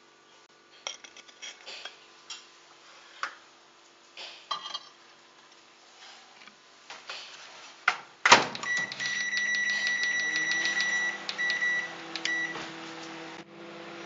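Light clunks and scrapes as a brick microwave kiln and its lid are set inside a microwave. About eight seconds in, the microwave door shuts with a thud and the oven starts up. It runs with a steady hum and a high tone that breaks off a few times, then drops to a quieter hum near the end.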